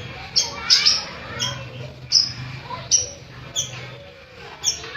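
Bayeman songbird singing in rapid, sharp chirps, each a short high note that falls in pitch, about seven in quick succession.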